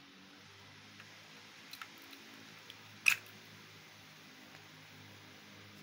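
Electric plug being pushed into a power-strip socket: a couple of light clicks, then one sharp click about three seconds in, over a faint steady electrical hum.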